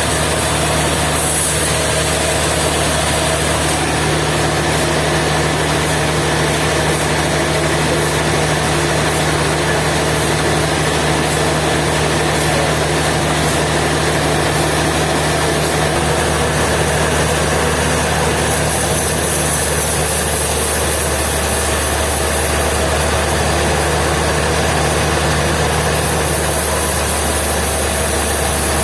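Sawmill engine running steadily, with a constant low hum and no change in speed or load.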